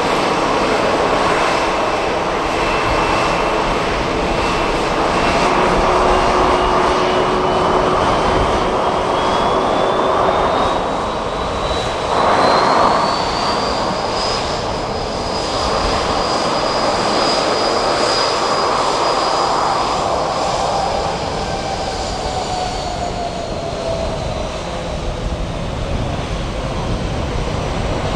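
Boeing C-40C's twin CFM56-7 turbofans running at taxi power: a steady jet rumble with a thin whine on top. The whine climbs in pitch through the first half, with a brief louder surge near the middle, holds, then eases down in pitch toward the end as the jet swings tail-on.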